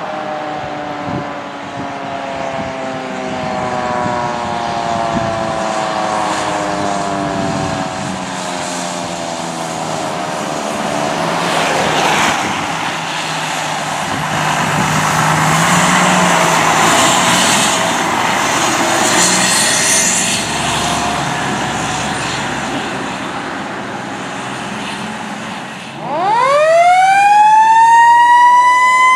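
Fire engine responding with its siren: a siren wail falls slowly in pitch, then the truck's engine and tyres hiss on the wet road as it goes by. About 26 seconds in, a siren winds up sharply to a high, held wail.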